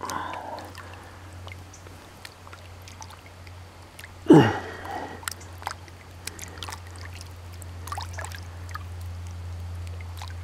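Hands sloshing and splashing in shallow creek water while rinsing a freshly caught longear sunfish, with small splashes and drips throughout and one louder splash about four seconds in. A steady low hum runs underneath.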